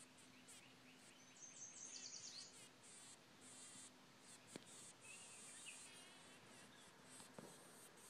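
Near silence: a faint steady low hum with a short run of faint high chirps about one and a half to two and a half seconds in, and two faint clicks later on.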